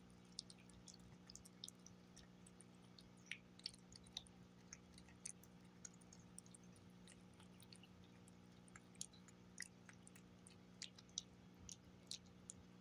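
Cat chewing and licking wet paté from a plate: faint, irregular wet clicks and smacks, over a steady low hum.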